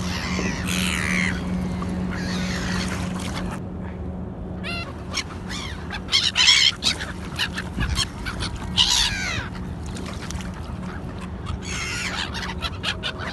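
Gulls calling in repeated bursts of harsh, falling squawks from several birds at once.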